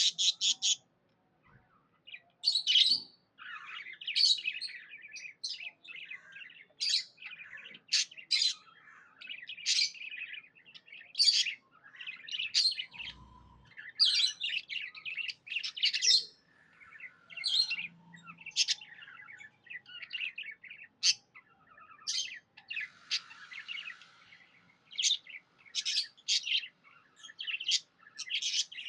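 Budgerigars chirping in a rapid string of short high notes, almost without pause except briefly about a second in.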